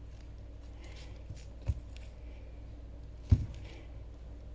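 Two soft, low thumps about a second and a half apart, the second louder, over quiet room tone.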